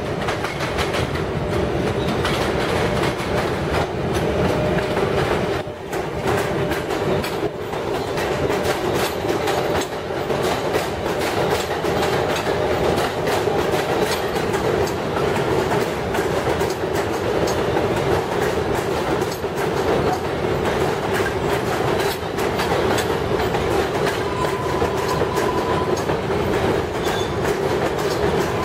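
R142A-type New York City subway train running along an elevated steel structure into a station, its wheels clattering over the rail joints over a steady rumble. A steady high tone joins in near the end as the train slows.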